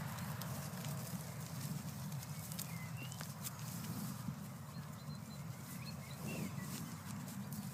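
Outdoor meadow sound around horses: a steady low rumble with a few short small-bird chirps and scattered soft clicks.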